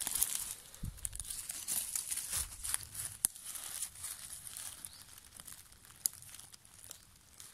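Dry leaf litter and twigs rustling and crackling as a hand clears them from around a porcino mushroom, with a few sharp cracks. It is busiest in the first seconds and quietens toward the end.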